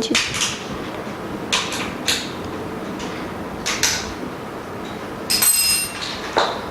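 Hands fitting parts onto a vacuum pump: a series of short knocks, clicks and rustles at irregular times, with a light metallic ring near the end.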